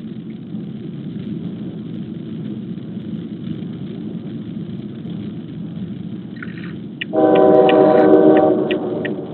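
Steady low rumble, then about seven seconds in a train horn sounds a held multi-note chord for about two seconds. A string of short high ticks comes over the last three seconds.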